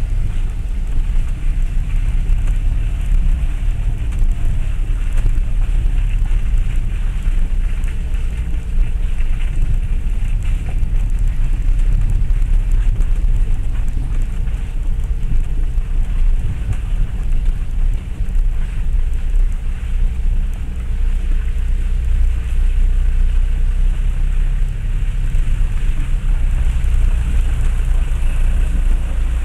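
Steady low rumble inside the cabin of a Land Rover Freelander 1 TD4 as it drives slowly along a rough, muddy green lane. The diesel engine and the running gear sound over the uneven track.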